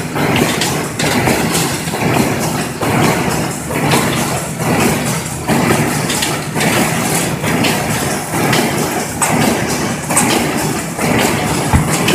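Corrugated cardboard partition assembly machine running: a steady mechanical hum with repeated short knocks and clatter as its press heads cycle.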